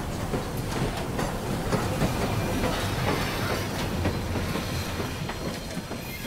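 Passenger train carriage in motion: a steady rumble of the running train with frequent rattles and clicks from the wheels and the carriage.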